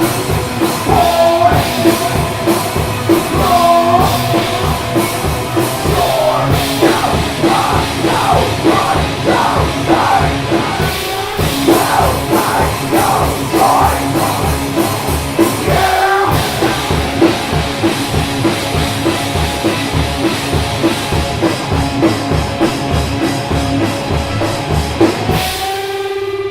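Rock band playing loud and fast, with a steady drum beat under guitars. Near the end the playing drops out briefly and a single held note rings on.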